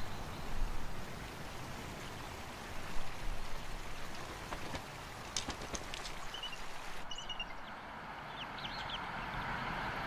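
Steady outdoor hiss with a few louder swells in the first seconds and a handful of faint clicks past the middle. Short, high chirping bird calls come in the second half.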